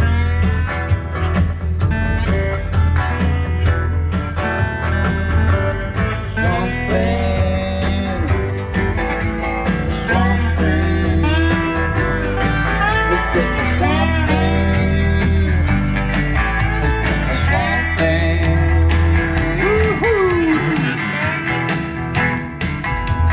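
A small band playing live in a room: guitars, including an acoustic guitar, over a steady bass line in a bluesy style. A few seconds before the end, one note bends up and back down.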